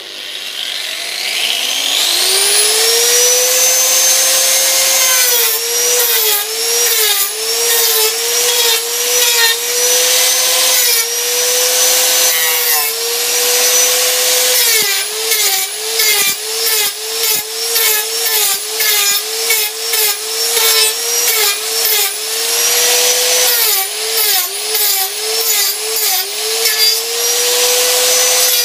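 Variable-speed angle grinder with a wood carving bit spinning up from switch-on over the first few seconds, then rough-carving a pine board. The motor's pitch dips each time the bit bites in and recovers between cuts, under a loud rasping of wood chips.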